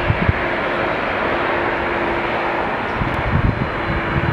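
Jet airliner engines running with a steady roar, a faint steady tone under the noise, and irregular low rumbles.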